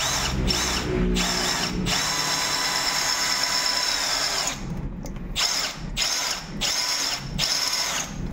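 Cordless drill boring out a seized bottle-cage bolt and its spinning rivnut in a bike frame, the bit cutting metal. It runs in short trigger bursts, with one steady run of a couple of seconds in the middle, then short bursts again about twice a second.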